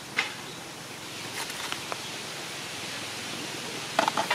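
Steady outdoor background hiss, with a few short, sharp chirps scattered through it and a quick cluster of them near the end.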